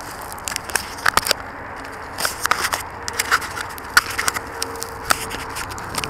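Handling noise on the drone's onboard camera: irregular crackles, taps and scrapes of hands and puffy jacket fabric rubbing against it.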